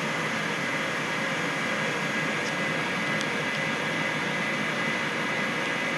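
Steady machinery noise: an even hiss with a few faint steady hum tones, the running equipment of a boiler room.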